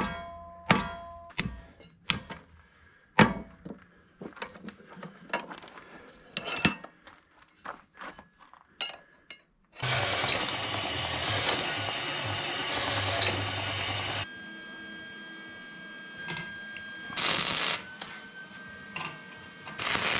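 Metal parts and tools being handled with scattered clicks and knocks, then welding: a steady crackling weld of about four seconds, followed by two short tack welds near the end.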